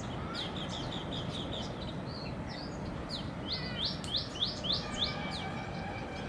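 Small bird calling: a quick run of short, high, down-slurred chirps, then after a pause a louder run of about seven down-slurred notes, some three a second. A steady low background rumble and hiss runs underneath.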